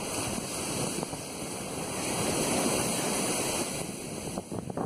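Ocean surf breaking and washing up a sandy beach, with wind on the microphone. The wash swells to a peak about halfway through and falls away near the end.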